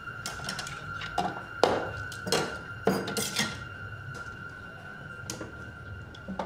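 Crockery and cutlery clattering as a white bowl holding chopsticks and a spoon is picked up and cleared from a table. There are several quick clinks and knocks in the first three and a half seconds, the loudest about a second and a half in, and one more faint knock later. A steady high tone runs underneath.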